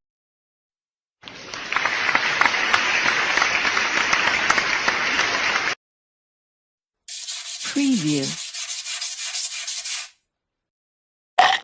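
Separate sound-effect clips cut one after another with dead silence between them. First comes a rough, even noisy hiss of about four and a half seconds. After a pause comes a three-second hissy clip with a short sliding voice-like sound in it, and then a brief blip near the end.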